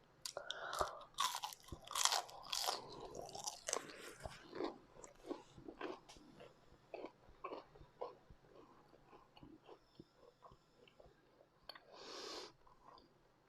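A person bites into crunchy fried food and chews it close to the microphone. Loud crunches come in the first few seconds, then softer, steady chewing, with a brief rush of noise near the end.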